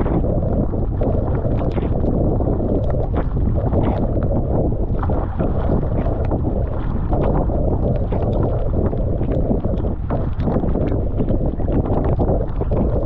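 Wind buffeting the microphone over water rushing along a Fenn Elite S surfski's hull as it is paddled through choppy sea. The paddle blades splash in and out in a steady stroke rhythm.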